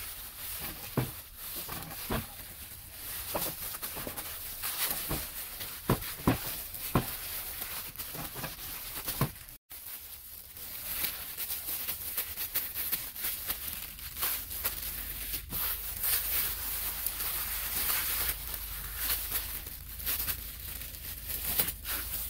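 Plastic bag and disposable plastic gloves crinkling and rustling as hands press and spread cooked rice on a wooden board, with scattered sharp clicks and taps.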